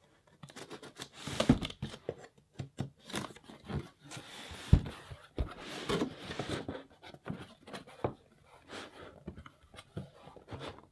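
Cardboard shipping box being opened: the end of a box cutter slitting the packing tape, then the cardboard flaps pulled and folded open, with scraping, rustling and irregular clicks and one sharp knock about halfway through.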